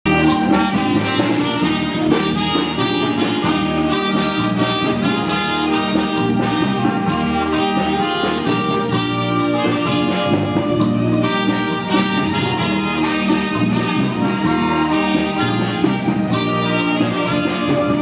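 Instrumental music with a steady beat, playing continuously at an even level.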